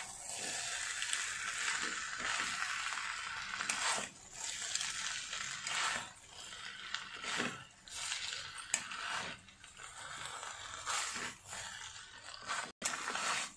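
Noodles and vegetables sizzling in a hot steel kadai while two spatulas toss and mix them. The hiss dips and swells with each lift, about every second or two, with occasional clicks of the spatulas on the pan.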